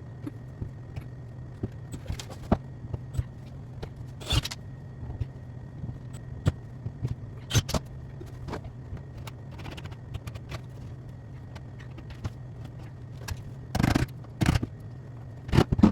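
Irregular light clicks and metallic clinks with several sharper knocks, over a steady low hum: metal parts being handled, as when a wall vent cover is worked loose.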